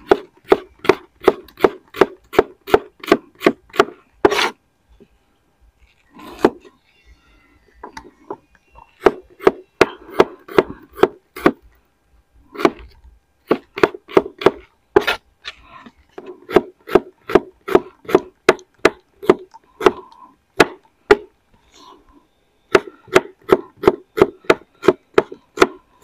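Wide-bladed kitchen knife slicing shallots on a wooden cutting board: runs of quick knocks on the board, about three a second, broken by short pauses.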